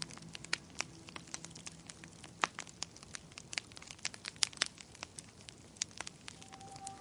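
Wood fire crackling in a fireplace: irregular snaps and pops, some sharper than others. Soft music fades away in the first seconds and a new held tone comes in near the end.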